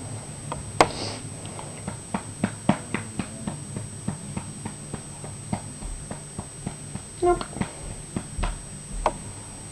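Scattered light knocks and clicks of handling and movement, with one short pitched vocal sound from a baby about seven seconds in.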